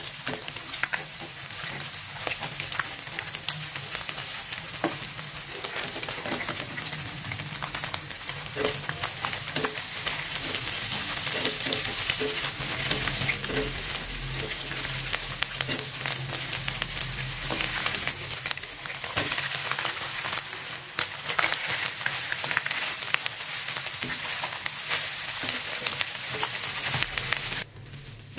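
Egg, shallots and vegetables stir-frying in hot oil in a non-stick wok, a steady sizzle with frequent small scrapes and taps as a silicone spatula stirs and turns the food. The sizzle drops off sharply near the end.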